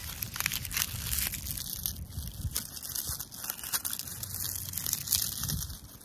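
Dry fallen leaves crackling and crunching as they are crushed and crumbled in a hand close to the microphone, a dense irregular crackle that dies away near the end.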